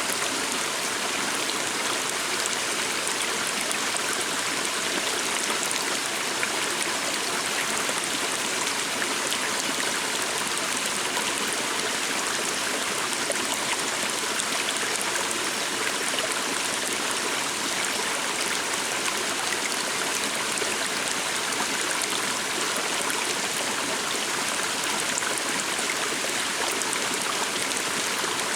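Stream of water flowing steadily, a continuous rushing and trickling.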